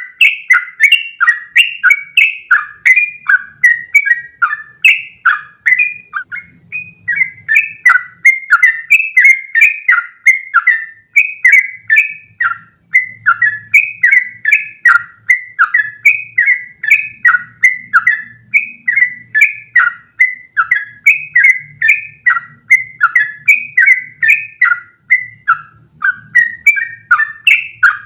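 Yellow-vented bulbul (trucukan) singing a long, unbroken run of short chirping notes, about three a second, the continuous 'ropel panjang' song used as a tutor recording for other trucukan.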